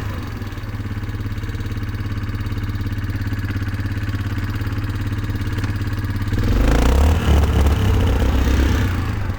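2004 Yamaha Kodiak 450 ATV's single-cylinder four-stroke engine running steadily at low speed, then picking up and running louder and rougher about six seconds in as the quad is driven off.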